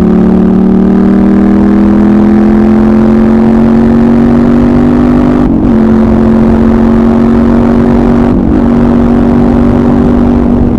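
Suzuki SV650S's 90-degree V-twin running under way at steady cruising revs, the note climbing slowly for the first half. The note dips briefly twice, about halfway and again some three seconds later, then holds steady.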